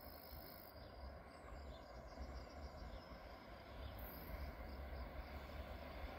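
Crickets chirping in the grass in short high-pitched spells, over a faint low rumble of a distant train that grows louder toward the end as it approaches.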